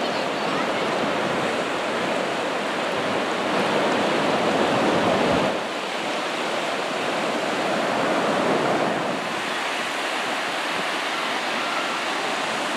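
Ocean surf washing on a beach, a steady rush of water that swells twice, with wind on the microphone.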